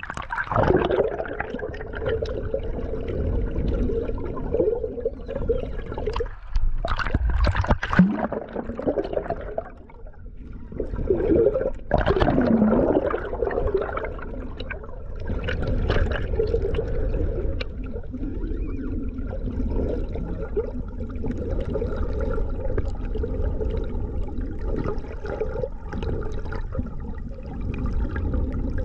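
Water rushing and gurgling past a camera held underwater beside a sailboat's hull moving under sail, heard as a muffled low wash. In the first dozen seconds or so it is broken by a few splashes and dips as the camera moves through the water.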